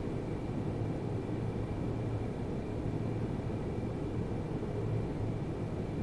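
Steady low rumble of room background noise with a faint, thin high whine, and no distinct events.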